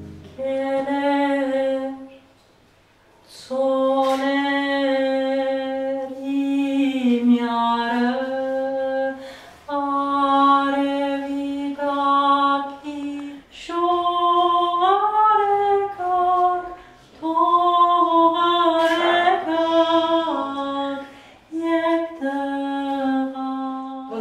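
A woman singing unaccompanied in long held notes, in slow phrases with short pauses between them.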